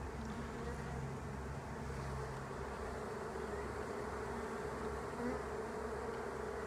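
Honeybees buzzing steadily in flight around a hive box, a continuous even hum.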